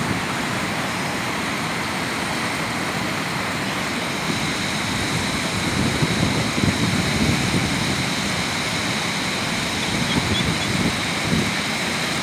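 Waterfall: falling water rushing as a steady, even noise, with an uneven low rumble underneath.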